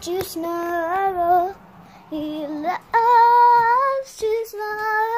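A young girl singing a made-up song in a string of long held notes, the pitch wavering up and down, with short breaks between phrases.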